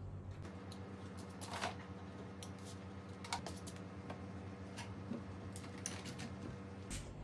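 Scattered light clicks and taps of small objects being handled, over a steady low hum.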